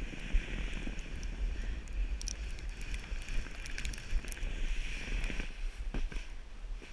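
A sled sliding fast down a snowy slope: snow hissing and scraping under it, with wind rumbling on the microphone. There are a couple of knocks near the end.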